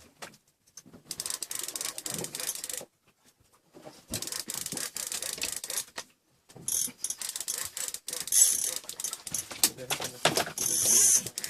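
Fishing reel clicking in bouts of a few seconds, with short pauses between them.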